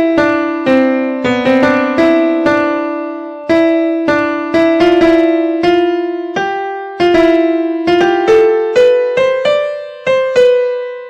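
Instrumental ringtone melody: single ringing notes, each struck sharply and fading, about two a second, with the last note fading out near the end.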